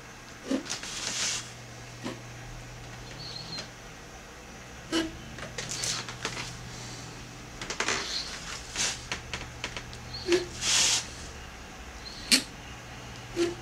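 Reed pen scratching across paper as ink strokes are drawn, in short irregular strokes with small clicks and taps of the nib between them, over a steady low hum.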